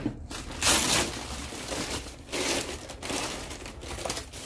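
Brown kraft-paper wrapping crinkling in a series of rustles as it is pulled off an orchid, loudest about a second in.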